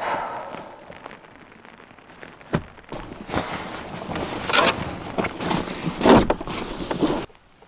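Rustling of a nylon puffer jacket being pulled off and handled, with a sharp knock about two and a half seconds in and heavier rustles through the second half.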